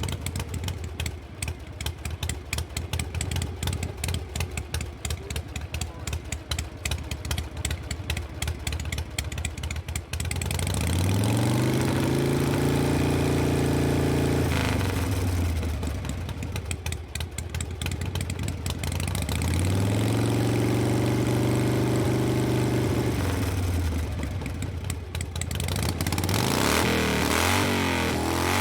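Harley-Davidson Panhead V-twin motorcycle engine idling with an uneven, pulsing beat, then revved up twice, each rev held for a few seconds before dropping back to idle. The revs start changing again near the end.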